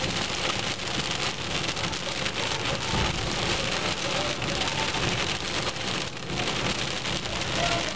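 Torrential rain pelting a car's roof and windshield, heard from inside the cabin as a steady, dense hiss.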